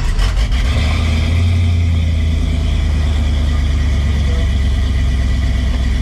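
The truck's 5.3-litre V8 cranks briefly and catches about half a second in. It then runs at a steady fast idle of around 1,300–1,400 rpm.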